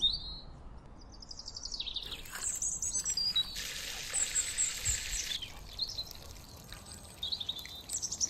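Small birds chirping and trilling in quick, high repeated calls, with a short steady hiss lasting under two seconds around the middle.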